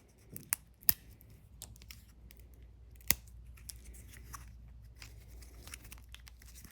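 A few sharp snips and clicks from hand work on wood veneer, the loudest about a second in and about three seconds in, with lighter ticks and rustling between.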